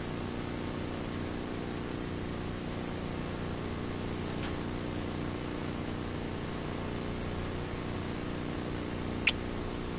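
Steady low background hum with a light hiss, and one sharp click a little over nine seconds in.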